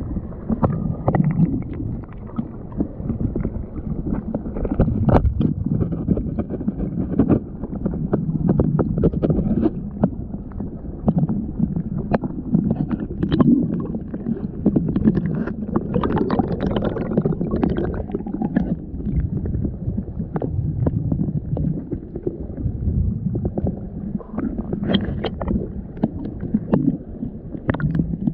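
Muffled underwater rumble of moving water heard through a submerged camera's waterproof housing, with scattered knocks and clicks.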